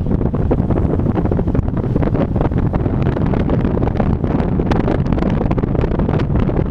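Wind buffeting the microphone of a camera mounted on the outside of a moving car, over the low rumble of the car on the road.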